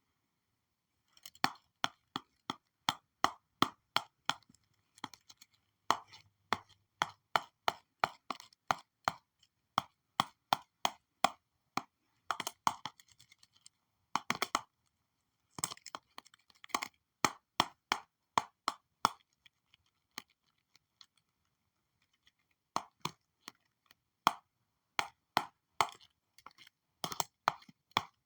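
Stylus tapping and drawing on a digital drawing tablet screen: sharp plastic clicks coming quickly in irregular bunches, with short pauses between them.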